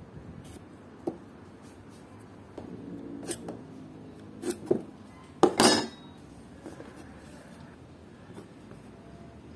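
Light clicks and knocks of a steel ruler and pencil handled against pine wood strips, with a louder, ringing metallic clatter about five and a half seconds in, when the ruler knocks on the wood.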